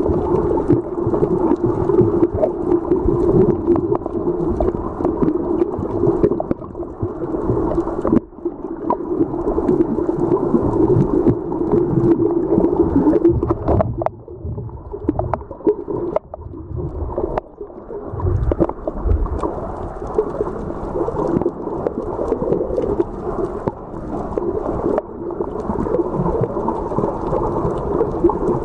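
Muffled underwater sound picked up by a camera held below the surface: a steady low hum over sloshing water noise. The hum weakens and breaks up about halfway through, then returns.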